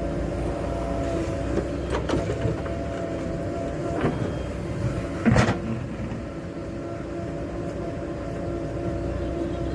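Diesel engine of heavy farm or earthmoving machinery running steadily, with a few metallic clanks; the loudest knocks come a little past halfway.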